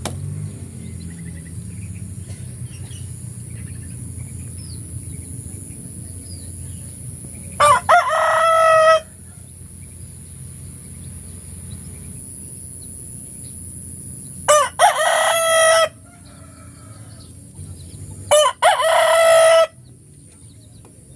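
A rooster crowing three times, each crow about a second and a half long, about eight, fifteen and nineteen seconds in.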